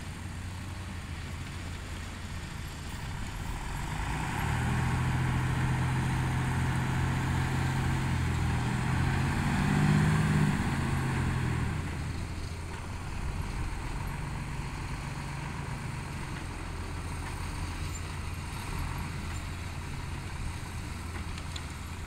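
Dump truck's engine running at idle, then held at higher revs for about eight seconds from around four seconds in while its hydraulic hoist tips the load bed up, before settling back to idle.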